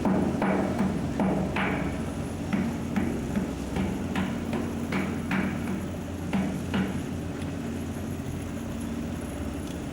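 Hammer blows at a thermite weld on a tram rail, about two a second, stopping about seven seconds in, over the steady low hum of an engine running.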